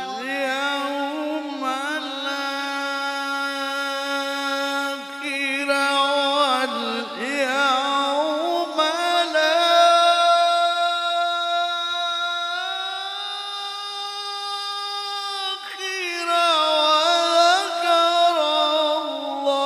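Male Quran reciter's voice in mujawwad tilawah, drawing out one long melismatic phrase in a high register with fast trills on held notes. The pitch climbs in steps to a long high note and falls back near the end.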